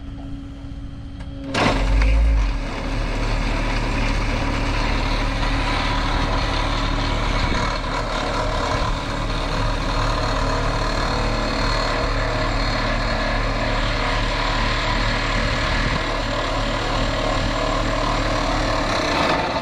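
Kubota KX080 excavator's diesel engine running, then about a second and a half in its hydraulic vibratory plate tamper starts up with a loud, steady vibration as it drives a wooden trellis post into the soil.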